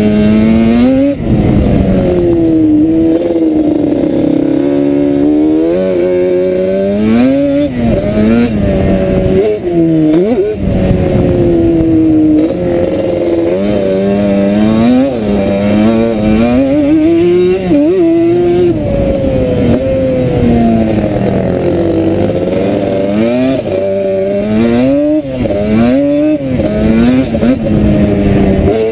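Sport ATV engine under load, its pitch climbing and dropping again and again as the throttle is worked and the gears change while riding on sand.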